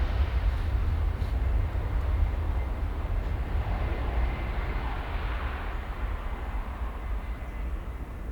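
Jet airliner's engines at takeoff thrust, a steady rumble slowly fading as the aircraft climbs away from the runway.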